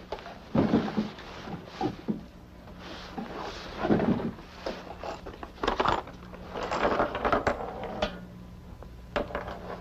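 Rummaging among small hard objects, which clatter and clink in a string of irregular knocks, over a steady low hum.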